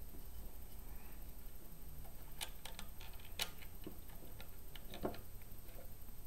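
Small clicks and taps of the Kodak Brownie Bull's-Eye camera's magnifying viewfinder being fitted back into its plastic body. The clicks are scattered and irregular, starting about two and a half seconds in, with the loudest about three and a half seconds in, over a low steady hum.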